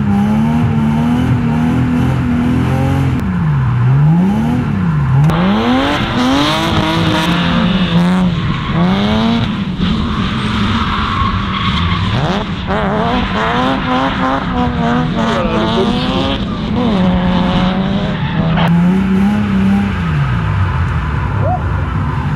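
BMW E36 328i's straight-six engine revving up and down repeatedly while drifting, with tyres squealing. From about five seconds in until near the end, a second car's engine and more tyre screech overlap with it.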